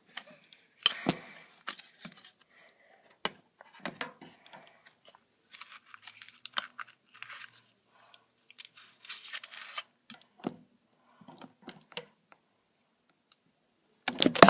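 Adhesive tape and small objects being handled: irregular clicks, crinkles and short tearing sounds, with a longer rustling, tearing stretch about two thirds of the way through.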